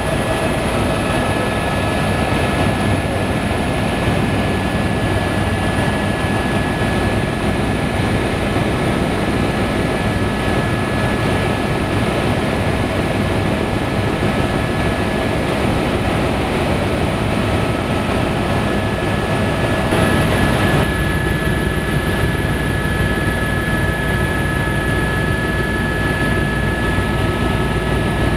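Helicopter in flight, heard from inside the cabin: a loud, steady rush of engine and rotor noise with a steady high whine. The sound shifts slightly about twenty seconds in.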